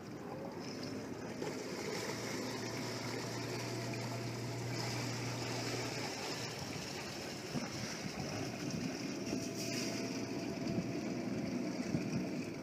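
A boat's inboard engine running at low speed, a steady low drone that drops away about halfway through, over water washing and lapping.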